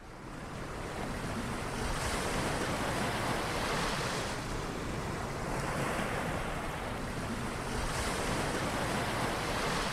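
Ocean surf: a steady wash of waves that fades in at the start and swells and eases about every two seconds.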